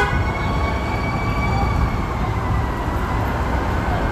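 Steady low rumble of idling vehicle engines, with a faint high whine held throughout that wavers slightly in pitch.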